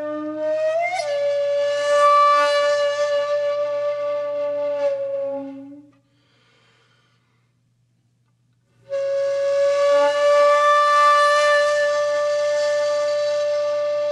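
Music: a solo wind instrument holding long, slow notes. It fades out about six seconds in and comes back with another long held note about three seconds later.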